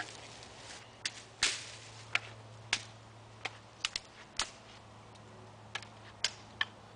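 Dry dead sticks snapping by hand into firewood: about a dozen sharp cracks at irregular intervals.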